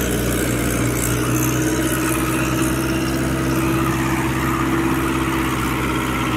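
Mahindra Yuvo four-wheel-drive tractor's diesel engine running steadily under load as it pulls a loaded paddy trolley through mud.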